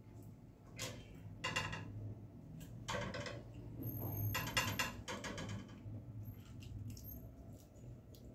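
Faint clicks and short rattles, several in a row from about one to five seconds in, over a low steady hum.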